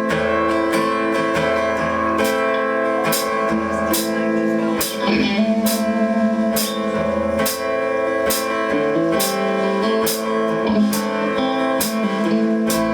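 Instrumental intro of a band's song: guitars over bass with a steady drum beat, before the vocals come in.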